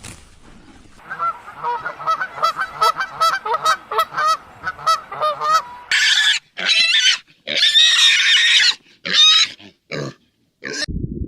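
Farm animals calling: a quick run of short pitched calls, about three a second, then from about six seconds in several louder, harsher calls, the last two short.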